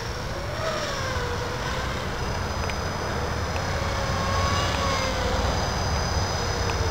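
Small electric RC helicopter (eSky CP3 with a high-speed brushless main motor) in flight, its motor and rotor whine drifting slowly up and down in pitch as it flies circles.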